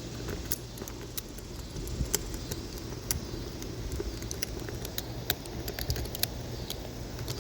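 Small metal hardware clinking and clicking, irregularly and many times over: screws, washers and an Allen key being handled while a windshield bracket and screen are put back together. A steady low hum runs underneath.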